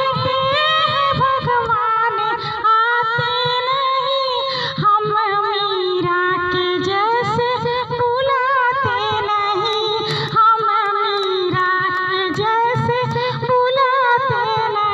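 A woman singing unaccompanied in long, drawn-out melodic phrases with wavering vibrato, with faint low knocks beneath the voice.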